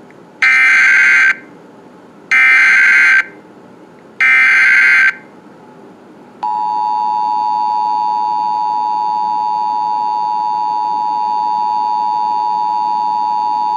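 Emergency Alert System activation: three short bursts of the SAME digital header tones, each just under a second long and about two seconds apart. About six seconds in comes the steady two-tone attention signal (853 and 960 Hz sounded together), which holds unbroken to the end.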